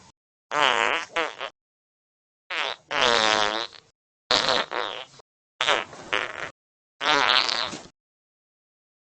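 Fake fart noises: about five separate drawn-out blasts with a wavering, buzzy pitch, each stopping abruptly, with short silences between.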